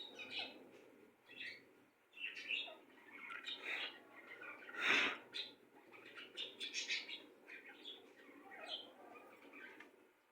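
Birds chirping: a busy run of short, overlapping chirps, with one louder call about five seconds in.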